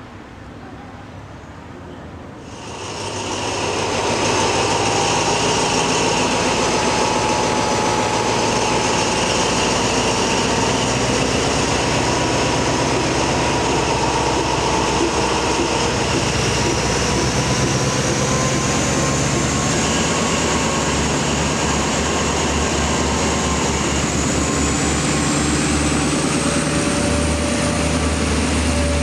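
Diesel locomotive running with its train, loud and steady, with a high whine that slowly rises in pitch over the second half. It starts abruptly a couple of seconds in, after a quieter stretch.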